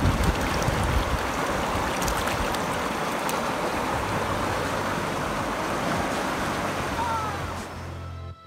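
Water splashing as it is poured from a cut-open plastic jug into a river, over the steady rush of the river's water. Music comes in near the end.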